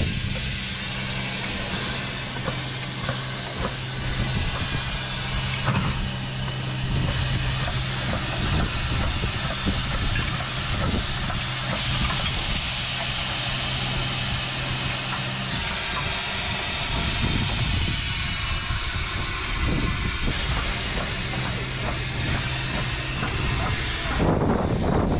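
Harz narrow-gauge steam locomotive 99 222 standing with steam hissing steadily, over a steady low hum that drops out about two-thirds of the way through and returns. It gets louder just before the end.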